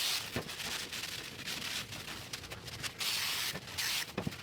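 Aerosol brake cleaner sprayed in short hissing bursts, one ending just after the start and another about three seconds in, degreasing a bicycle brake disc, with quieter rubbing of a cloth between.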